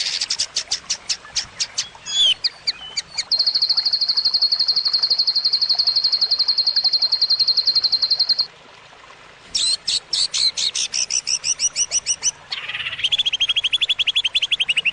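Songbird tutor song for training white-rumped shamas: a quick run of sharp notes, then a fast trill held on one high pitch for about five seconds. After a short pause comes a burst of varied notes, and then a lower trill ending in a falling slide.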